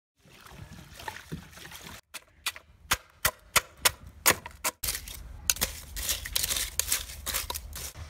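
About ten sharp knocks of a stone striking spiny sea urchins in an aluminium pot, from about two seconds in. After that comes a steady crackling hiss of sea urchins cooking in a steaming pan.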